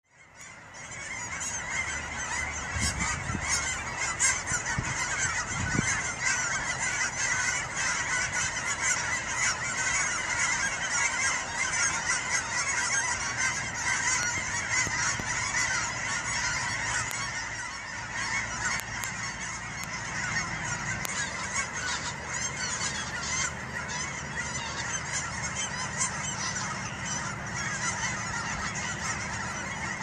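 Large flocks of geese flying overhead, many honking at once in a dense, continuous chorus. A few low thumps come in the first seconds.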